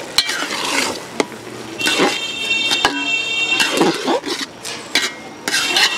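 Long flat metal spatula stirring boiling rice in a large aluminium pot, scraping and knocking against the pot at irregular moments.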